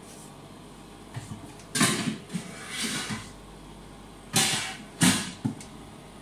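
Short rustles and knocks of close handling noise: a cluster about two seconds in and two sharper knocks near the end.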